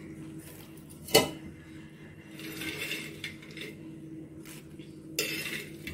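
Spoon knocking and scraping in a nonstick pan as fried soya chunks go into the chilli sauce: one sharp clink about a second in, then lighter scraping twice. A steady low hum runs underneath.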